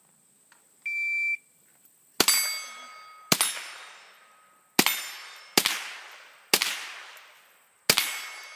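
A shot timer beeps once, then six rifle shots come at an uneven pace, each followed by the ringing clang of a steel target plate being hit.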